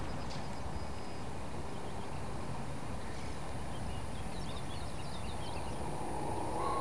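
Outdoor night ambience: a steady hiss with a faint high whine, and a few faint bird chirps about halfway through.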